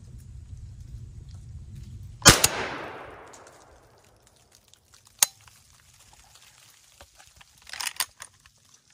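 A single gunshot from a squirrel hunter's gun about two seconds in, its echo dying away through the woods over about two seconds. A sharp click follows a few seconds later, and a brief rustle near the end.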